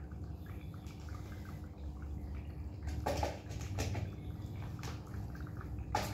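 Wet cat food being spooned out of a can into plastic bowls: soft wet scraping, with a few light taps of the spoon against the can and bowls.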